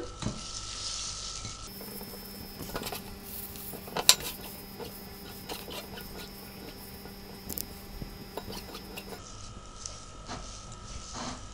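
Hands crumbling fresh sheep's curd (caș) in a glass bowl: faint, soft crumbling and squishing with scattered light clicks, the loudest about four seconds in.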